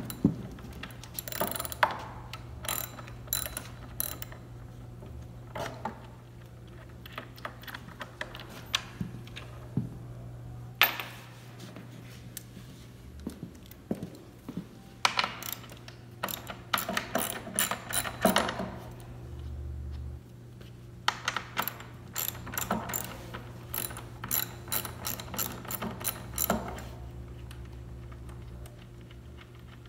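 Socket ratchet wrench clicking as bolts are backed out of threaded inserts, in several bursts of rapid ratcheting with short pauses between.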